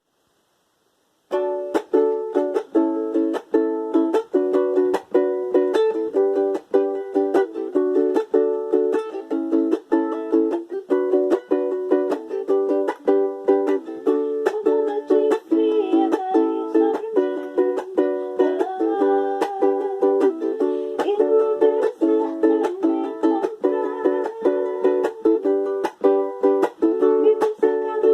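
Ukulele strummed in a steady rhythm, playing a chord-based tune, starting about a second in.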